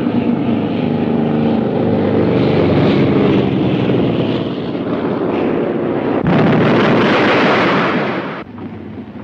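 Propeller aircraft's piston engine running steadily on a carrier landing approach, heard on an old film soundtrack. About six seconds in, a sudden loud rushing noise takes over and cuts off about two seconds later.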